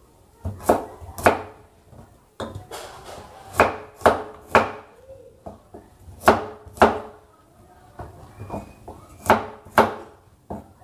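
Cleaver chopping shallots and garlic on a wooden cutting board: sharp knocks of the blade striking the board, often two in quick succession, in irregular groups with short pauses between.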